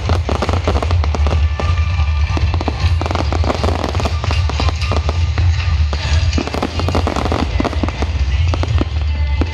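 Fireworks crackling and popping densely as shells burst and their sparks trail down, many rapid cracks overlapping. Loud show music plays underneath with a heavy steady bass.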